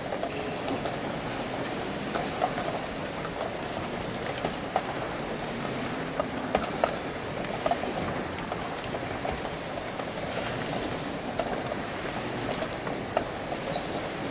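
Busy chess playing-hall ambience: a steady murmur with frequent irregular sharp clacks, typical of pieces being set down and clock buttons being hit at nearby blitz boards.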